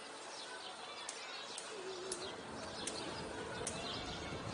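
Faint outdoor birdsong: short chirps, with a brief wavering low coo about two seconds in.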